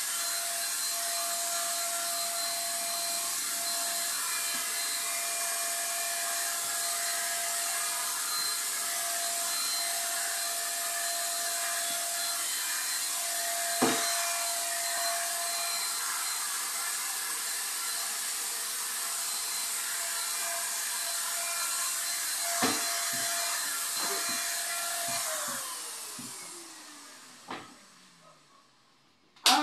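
Electric paint sprayer running with a steady airy hiss and a whine as paint is sprayed, with a knock now and then. About 25 seconds in it is switched off and the motor winds down, the whine falling in pitch as the hiss fades.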